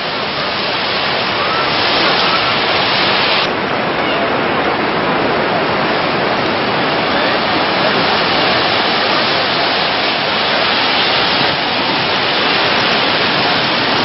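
Steady, loud roar of Niagara Falls, with spray close by.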